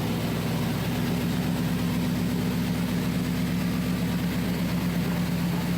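1995 Chevy Tahoe engine running steadily, held up at about 1500 RPM while the freshly recharged AC runs on max. A second, higher steady hum joins about a second in.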